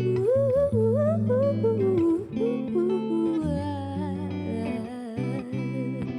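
Live band music: a wordless hummed vocal line sliding between notes over held guitar chords, the voice easing off about halfway while the guitar carries on.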